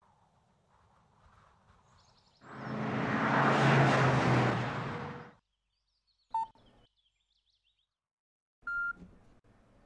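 A rush of noise with a low hum in it swells up and fades away over about three seconds. Then come two short electronic beeps of a smartphone, one about six seconds in and a slightly longer, higher one near the end.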